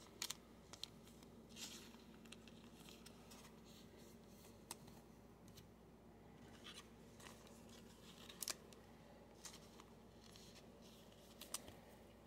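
Near silence with a few faint, scattered clicks and light rustles of trading cards and a clear plastic card sleeve being handled.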